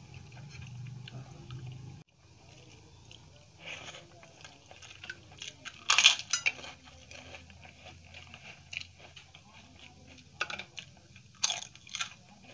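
Crisp papad (fried lentil wafer) being bitten and chewed: sharp crunches, loudest in a cluster about six seconds in and again shortly before the end, with softer chewing crackles between.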